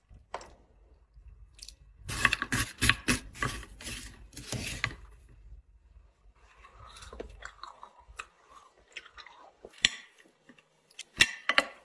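Frozen pomegranate arils crackling and crunching as cold milk is poured over them and they are stirred with a spoon. The crackling is densest about two to five seconds in; later come scattered scrapes and a few sharper clicks as a metal spoon works through the milk-frosted arils.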